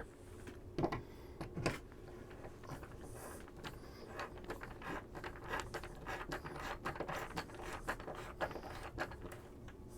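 A No. 2 Phillips screwdriver turned by hand, driving a threaded drywall anchor into drywall: faint scraping with a run of small clicks, and two louder knocks in the first two seconds.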